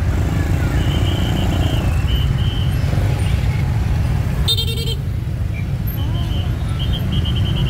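Dense jam of motorbike and car engines running in a steady low rumble, with scooter horns giving runs of short high beeps about a second in and again near the end, and one louder horn blast about halfway through.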